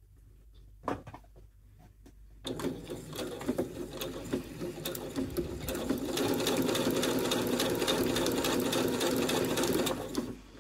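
Domestic electric sewing machine stitching a seam through two cotton fabric squares. It starts about two and a half seconds in with a fast run of needle ticks, picks up speed and gets louder around six seconds in, and stops near the end.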